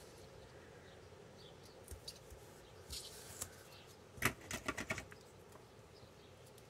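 Faint rustling and small clicks of a roll of double-sided foam tape being handled against a paper card panel, with a short cluster of crackles about four seconds in.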